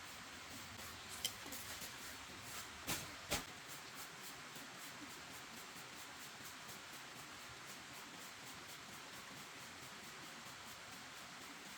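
Faint steady hiss with a few light knocks or clicks in the first few seconds, the two loudest close together about three seconds in.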